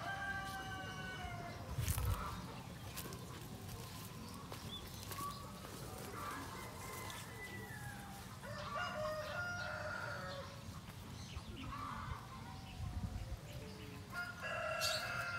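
Chickens calling: a rooster crows at the start and again near the end, with shorter clucking calls in between. Under them is a low rumble on the microphone, with two thumps, about two seconds in and a little before the end.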